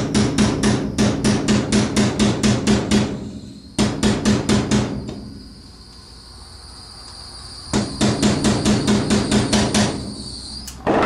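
A small hammer tapping a pin punch in quick, light strokes, about five a second, driving the locking pin for a flash hider into its tiny hole at the muzzle. The strokes come in three runs with short pauses between.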